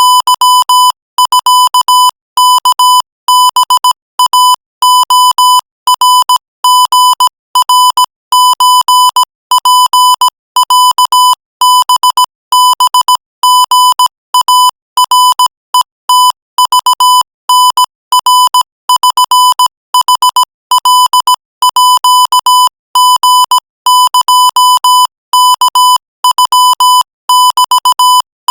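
Morse code sent at 20 words per minute: a single high beep keyed on and off in a steady stream of short dots and longer dashes, with brief gaps between letters and words.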